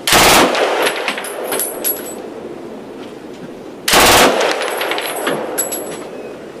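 MG42 machine gun firing 7.92x57mm Mauser rounds from a belt in two short bursts of about half a second each, about four seconds apart. Each burst is a fast, continuous rip that dies away into echo.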